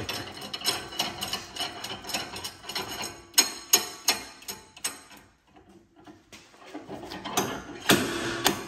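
Steel slide hammer pulling on a wheel-hub puller plate: the weight sliding along the shaft and striking its stop in sharp metallic clanks, working the front wheel hub and bearing loose from the wheel carrier. The hardest clanks come about three and a half seconds in and again near the end, after a short pause.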